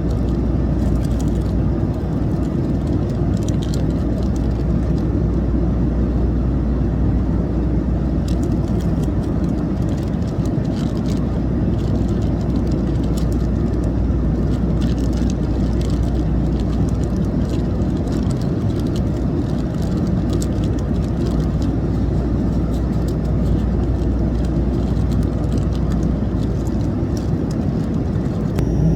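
Steady low rumble of a jet airliner's engines heard inside the passenger cabin, with faint scattered ticks and rattles over it.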